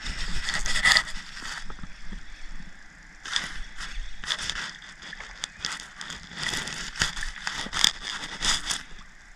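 Close handling of a spinning rod and reel: crackling clicks and scrapes in three bursts, with quieter gaps between them.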